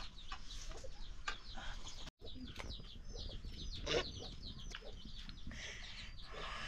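Chickens: a run of many short, high peeps and clucks, with a few scattered knocks.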